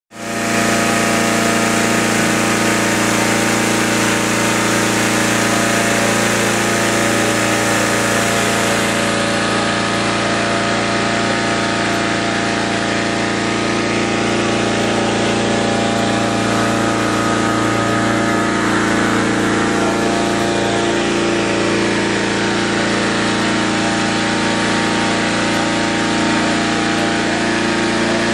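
Petrol-engined hot-air balloon inflator fan running steadily at a constant speed.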